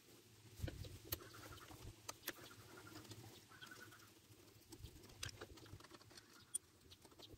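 Faint, scattered small clicks and scratches of a Phillips screwdriver working the two carburetor mounting bolts loose on an Echo SRM-210 string trimmer.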